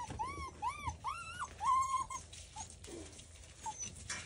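Golden retriever puppy whining in a quick run of short rising-and-falling whimpers, about three a second, that ends about two seconds in with a longer, level whine. After that there are only faint rustles, with a sharp click near the end.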